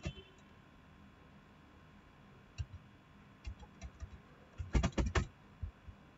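Scattered clicks from a computer keyboard and mouse, with a quick run of several clicks about five seconds in.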